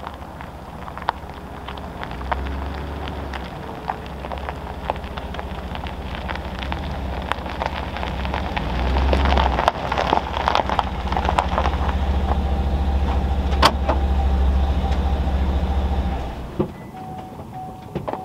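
Pickup truck engine running, a low rumble with many sharp crackles over it, growing louder and then cutting off suddenly near the end.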